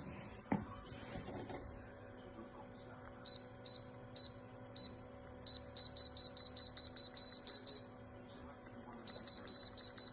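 Short, high electronic beeps from a control panel, like buttons being pressed: a few spaced beeps, then a rapid run of about five a second, and another run near the end. A single knock comes about half a second in.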